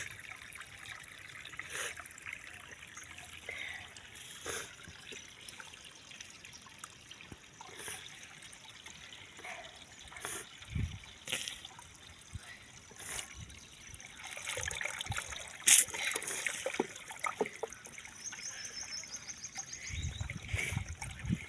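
Shallow stream water trickling and dribbling over stones, with scattered small splashes and ticks; one sharper tick about two-thirds of the way in.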